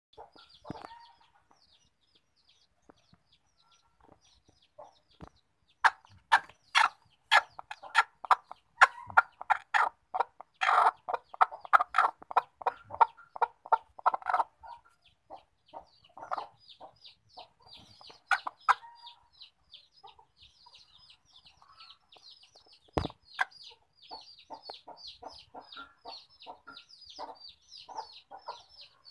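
Broody hen on her nest clucking in a fast run of loud, sharp calls, two or three a second, as a hand reaches under her for the eggs: a hen protecting her clutch. Quieter clucks follow over a fast, high chirping, with a single sharp knock past the middle.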